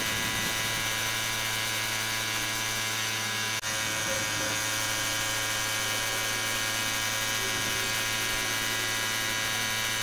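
Steady motor hum of an air compressor running under the hiss of a spray gun spraying primer onto engine crankcases. The sound drops out for an instant about three and a half seconds in.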